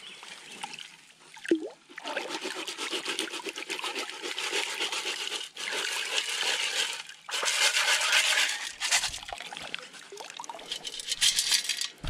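Perforated stainless-steel sand scoop shaken back and forth in shallow water, water sloshing and sand washing out through its holes. The sloshing comes in spells with short breaks.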